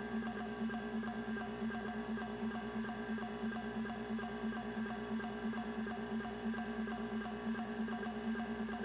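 CMI 6426S hard drive running its factory seek test: a steady spindle whine and hum with rapid, evenly repeating ticks from the head actuator seeking back and forth.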